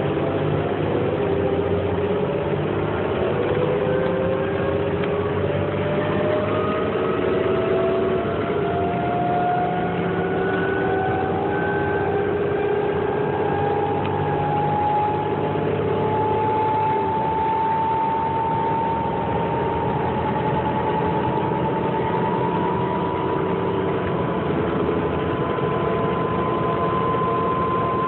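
Inside a 2008 New Flyer C40LFR transit bus under way, its Cummins Westport ISL-G natural-gas engine and Allison transmission running steadily. A drivetrain whine rises slowly and smoothly in pitch as the bus gathers speed.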